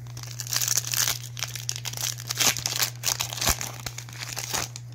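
A foil trading-card pack being torn open and crinkled by hand: a run of irregular crackles and tearing that stops shortly before the end.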